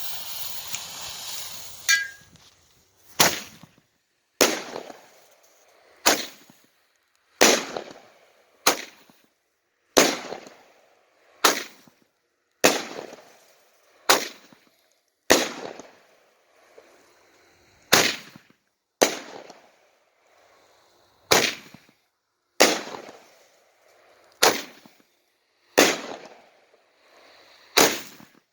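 Consumer firework cake (SKYSONG Royal Falcon 200g) firing a string of sharp, loud reports, roughly one every 1.3 seconds, each echoing away before the next. The steady noise before them stops about two seconds in.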